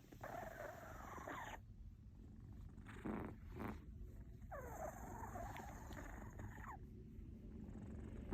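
A pet snoring while it is patted: two long, wavering snores, one about a second and a half long and one about two seconds long, with a shorter snuffling sound between them.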